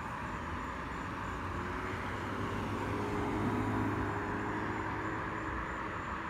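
Road traffic: a car passing on the street, the tyre and engine noise swelling to its loudest about halfway through, then easing off.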